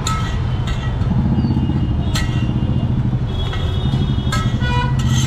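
A motor vehicle engine running steadily close by, a continuous low hum, with several sharp metal clinks of a steel spatula against a flat iron dosa griddle.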